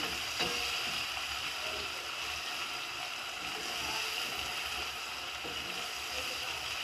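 Sliced onions sizzling steadily in hot oil in a pot, stirred with a wooden spatula while they fry to a light brown.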